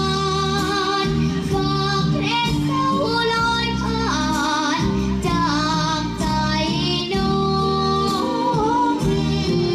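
A young girl singing a Thai luk thung song into a microphone over a backing track, with wavering held notes.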